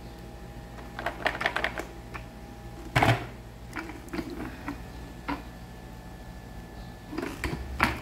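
Clicks and knocks of a wet-and-dry vacuum's plastic tank being handled: a quick clatter of small clicks about a second in, one louder knock about three seconds in, a few lighter taps after it, and another clatter near the end.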